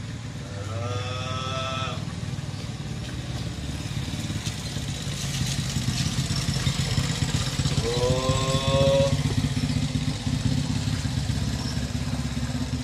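An engine running steadily, growing louder through the middle, with two drawn-out wavering calls over it, one about a second in and one about eight seconds in.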